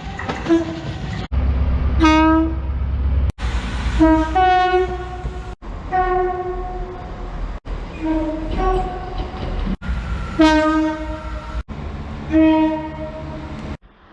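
A quick run of about seven short train horn blasts, cut one after another roughly every two seconds, each a loud pitched honk over the low rumble of the passing train.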